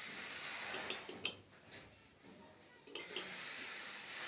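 Solvent cement being brushed onto a PVC pipe elbow: two stretches of scratchy scrubbing, about a second and a half each, with a quieter gap between them and a few light clicks of plastic.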